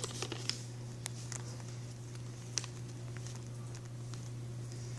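Sheet of paper being folded and creased by hand: a few faint scattered crinkles and taps over a steady low hum.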